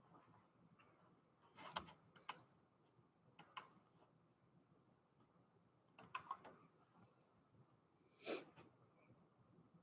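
Near-silent room tone broken by a few faint, scattered clicks in small clusters, with one slightly longer click near the end.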